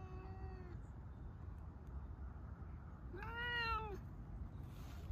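Siberian cat meowing twice: the end of a long, level-pitched meow at the start, then a second, shorter meow about three seconds in that rises and falls in pitch.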